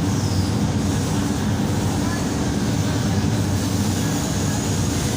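Steady low machine hum that runs on evenly without breaks.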